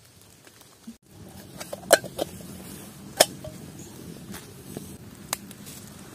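A few sharp clicks and knocks, the loudest about two seconds in and again just over a second later, over a steady low background noise that rises after a brief cut about a second in.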